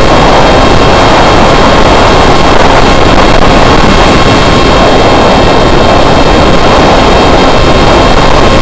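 Loud steady rush of wind over the onboard camera's microphone on an S800 foam FPV flying wing in flight, with the faint steady high whine of its electric motor and propeller underneath.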